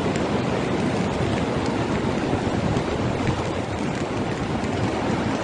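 Muddy floodwater rushing down a swollen river in a steady, unbroken roar of water.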